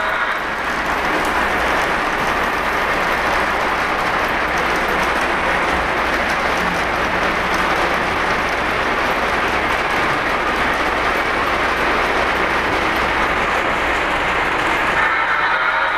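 Lionel O-gauge model trains running on FasTrack: a steady rolling noise of metal wheels on the track and the locomotives' motors.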